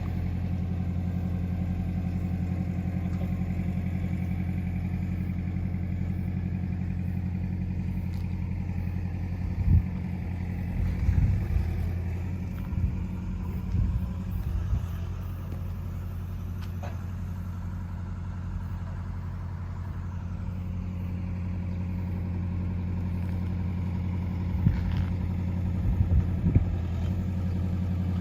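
Road roller's diesel engine idling steadily, with a few knocks and clunks about ten seconds in and again near the end.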